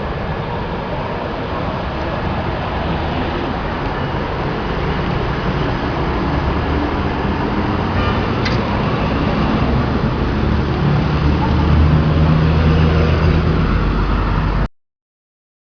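Large Mazak lathe running: a loud, steady mechanical drone with a deep rumble and a faint steady whine, growing a little louder toward the end before cutting off abruptly.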